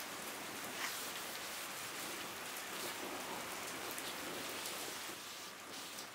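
Steady, even hissing background noise with no distinct events.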